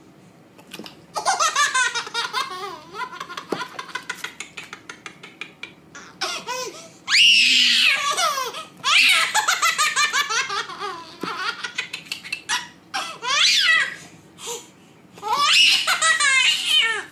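A baby laughing in repeated fits of high giggles and belly laughs, with short pauses between the fits.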